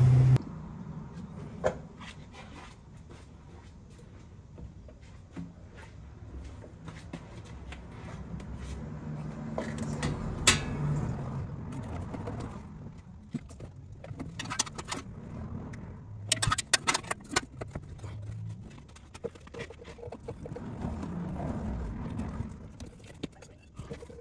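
A silicone intercooler charge pipe being worked into place by hand among the engine-bay hoses. Rubbing and scraping, with scattered clicks and knocks: a sharper one about ten seconds in and a quick run of clicks around sixteen seconds.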